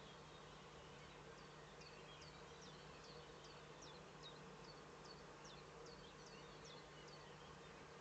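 Faint small songbird singing in the distance: a run of short, high, quickly falling notes, about two a second, over a steady low electrical hum from the webcam microphone.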